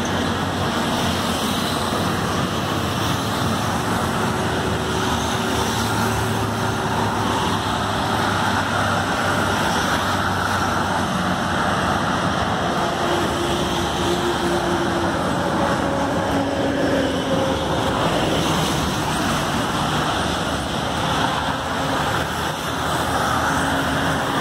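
Steady highway traffic noise: a continuous rush of tyres and engines from passing cars, trucks and motorcycles, with engine hums coming and going as single vehicles pass.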